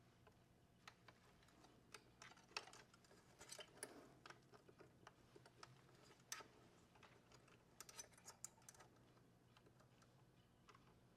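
Faint, irregular light clicks and taps of small hard objects, bunched in quick clusters through the middle, over a low steady hum.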